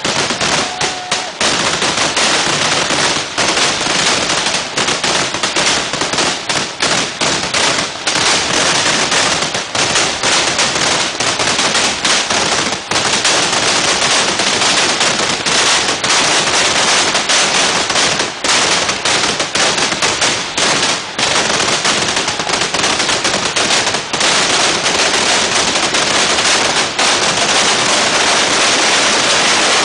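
Vedikkettu firecrackers exploding in a dense, unbroken barrage, bang after bang running together. The bursts grow thicker and more continuous in the second half.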